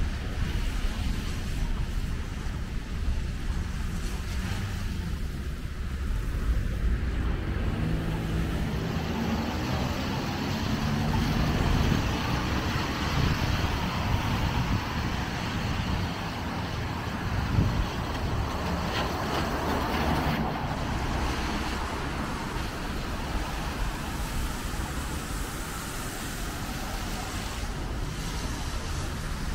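Road traffic passing on a rain-soaked road: a steady hiss of tyres on wet pavement mixed with car engines. It swells for several seconds in the middle as a vehicle with a low engine hum goes by.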